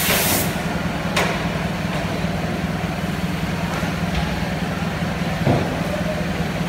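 Short-cycle melamine laminating hot press running with a steady low hum. A loud hiss cuts off about half a second in, and there is a sharp knock about a second in and a louder thud near the end.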